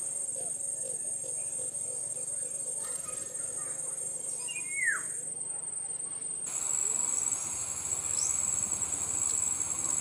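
Steady high-pitched insect chorus in the surrounding vegetation, with one short, loud, downward-sliding bird call about five seconds in.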